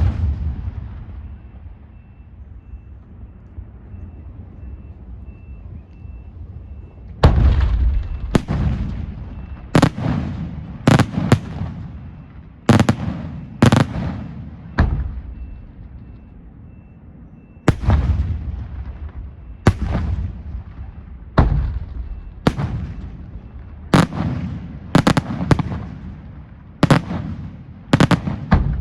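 Pirotecnica Senatore aerial firework shells bursting in loud bangs, each trailing off in echo. After a rumbling lull of several seconds, the bangs come in a quick, irregular run, about one a second, with a short pause about halfway through.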